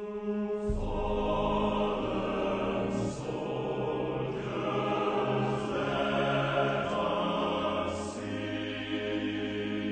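Slow background music of sustained chords that change every few seconds.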